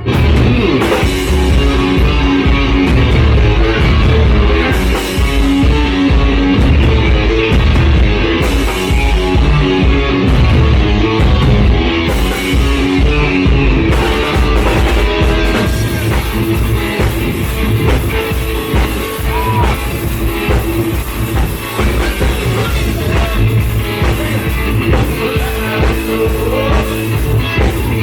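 Live rock jam: electric guitar played loud over a drum kit, going continuously without a break.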